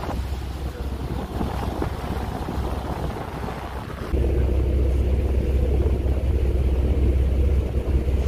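Wind buffeting the microphone over a low, steady rumble of vessel engine noise on the water. About four seconds in, the sound turns abruptly louder and heavier in the low end.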